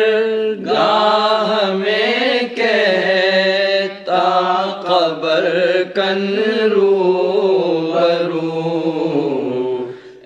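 A solo voice singing a devotional Urdu madeh, drawing out long melismatic notes that glide up and down, with short breaths between phrases, over a steady low drone. The line sinks in pitch and fades near the end.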